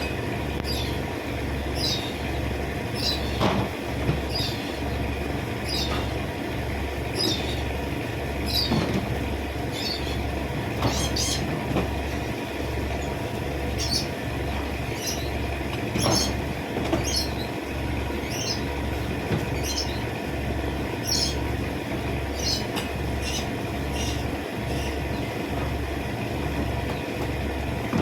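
Short high chirps, repeated about once a second, over a steady low mechanical throb that pulses about one and a half times a second.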